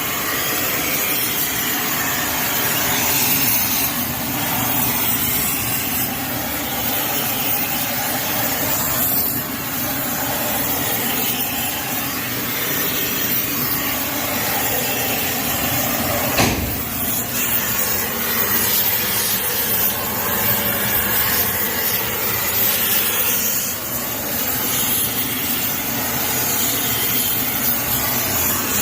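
A gas heating torch burning with a steady hiss as it heats a 9-inch Ford axle housing tube red hot so it can be bent straight in the lathe. A single sharp knock comes about halfway through.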